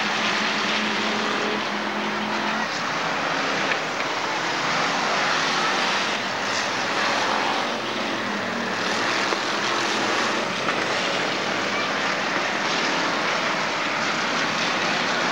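A pack of dirt-track street stock cars racing, their engines running hard together in a loud, steady drone.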